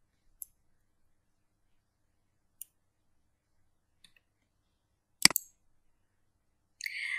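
Sparse small clicks in a quiet room: three faint single ticks spaced a second or two apart, then a louder double click about five seconds in.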